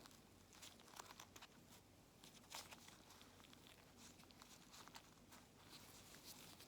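Faint rustling and small scattered clicks of an N95 mask and elastic strips being handled and turned over.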